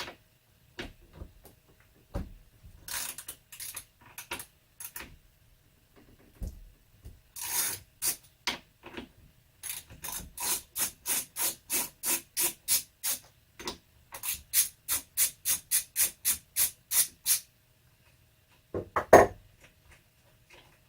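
Ratchet wrench loosening the bar-clamp nuts on a Stihl MS661 chainsaw: two runs of rapid, even clicks, about three a second. A single heavy clunk comes near the end.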